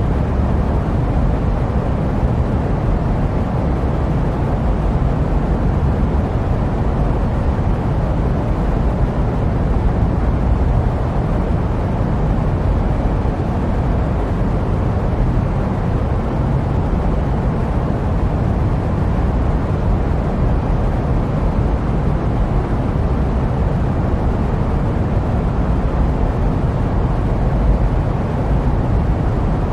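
Steady jet plane noise: a constant deep rumbling hiss, heaviest in the low end, with no changes.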